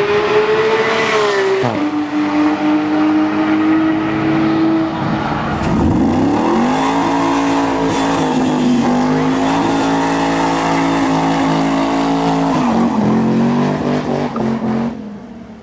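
High-performance car engine at high revs, its note held steady for several seconds at a time and dropping sharply a few times as it shifts or lifts, before cutting off near the end.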